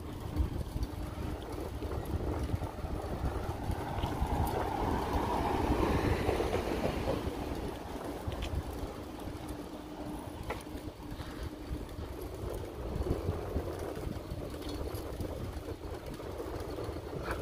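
Street noise heard while walking: a steady low rumble, swelling in the middle as a vehicle passes.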